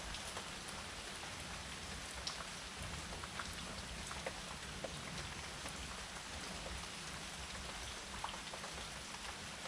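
Steady rain falling on a surface, a continuous hiss with scattered individual drops ticking through it.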